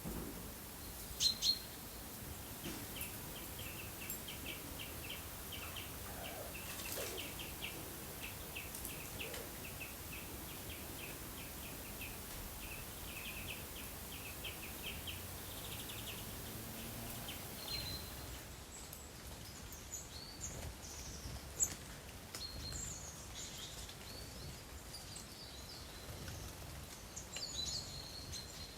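Small wild birds calling over a steady background hiss: a long, fast trill of repeated notes, then scattered short chirps. Two sharp clicks about a second in.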